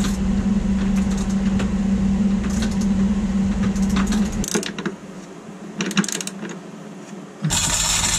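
Metal clicks and taps of hand tools working on the engine-mount bolts, over a steady low mechanical hum. The hum drops out for about three seconds past the middle, and near the end it returns with a loud metallic clatter.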